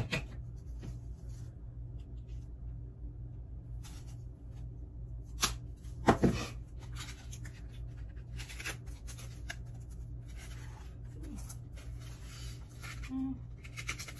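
Hands handling plastic eggs on wooden sticks and a foam disc with dried moss: scratchy rustling with a few sharp clicks, the loudest about six seconds in, over a steady low hum.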